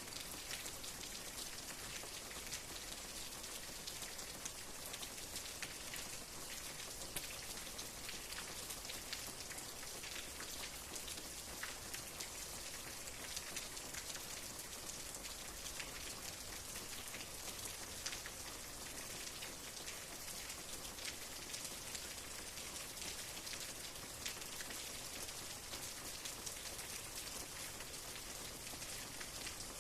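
Steady rain: an even hiss with many small ticks of single drops striking throughout.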